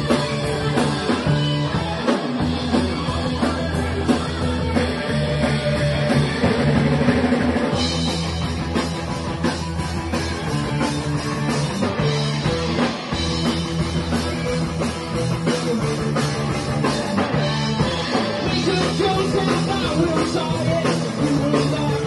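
A live rock band playing: electric guitars and a drum kit, loud and dense, the sound growing brighter about eight seconds in.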